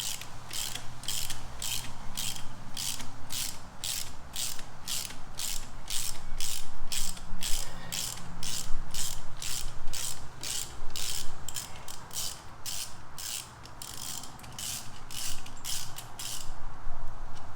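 Half-inch-drive hand ratchet clicking in repeated, even strokes, about two a second, as it works an 8 mm Allen socket on a motorcycle frame bolt to loosen it. The clicking stops near the end.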